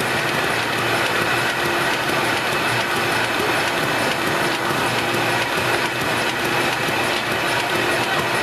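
Kirk Rudy KR219RSDF plow-fold system running: a dense, fast, even clatter of machine mechanics over a steady hum.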